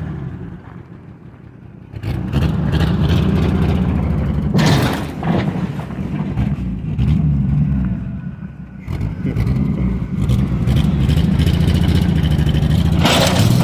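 An old Ford F-150 pickup's engine running and being revved: it idles low for the first two seconds, then revs up hard, eases off briefly around nine seconds in, and revs again.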